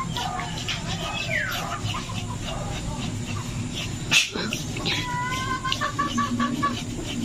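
A knife scraping the bristles off a scalded pig's hide in short, repeated strokes, with one sharp knock a little over halfway through. An animal calls in the background, including a string of short pitched calls about two-thirds of the way in.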